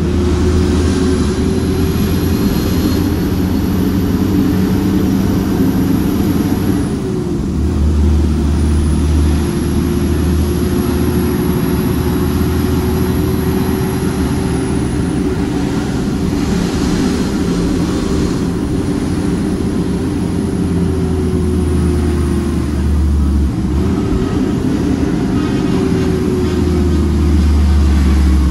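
Shacman F3000 dump truck's diesel engine running steadily on the road, heard from inside the cab, with a high whistle that rises and falls along with it. The engine note drops off twice, about seven seconds in and again later, as the throttle is eased or a gear is changed, then builds again.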